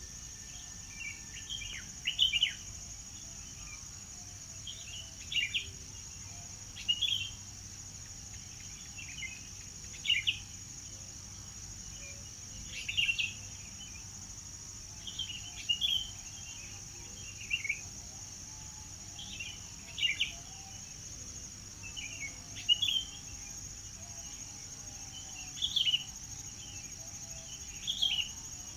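A bird chirping in short, sharp phrases repeated every one to three seconds, over a steady high-pitched hiss.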